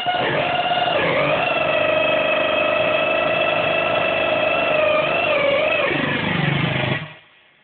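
Sonodrome POSC, a DIY theremin-style oscillator, sounding a buzzy held tone through a small amplifier as hands move over the box. The pitch wavers slightly and glides near the start, dips near the end, and cuts off about seven seconds in.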